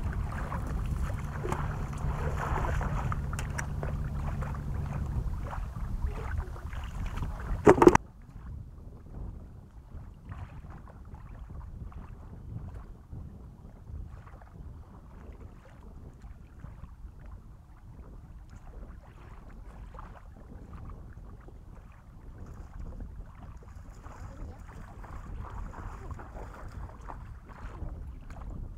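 Wind buffeting the microphone at the water's edge. A sharp loud knock comes just before eight seconds in, after which the wind noise drops to a softer, fluttering rustle.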